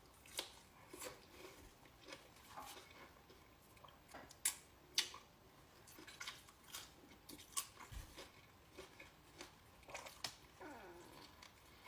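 A person chewing and biting into a Subway sandwich: faint, irregular wet mouth smacks and small crunches, with two sharper clicks about half a second apart midway.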